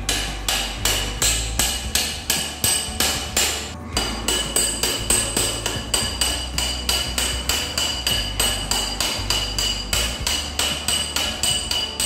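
Steel box spanner spun quickly on a motorcycle's rear axle nut, giving a fast, even train of sharp metallic clicks, about three to four a second, each with a short ring. There is a brief break about four seconds in.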